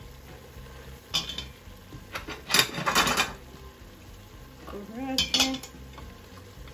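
Metal spoon clinking and scraping against a stainless steel pot as spinach and potatoes are stirred. It comes in short clatters about a second in, louder from about two to three seconds in, and again just after five seconds.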